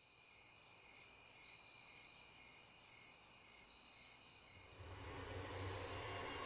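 Crickets chirping steadily in a night-time chorus. Near the end a low rumble swells in underneath.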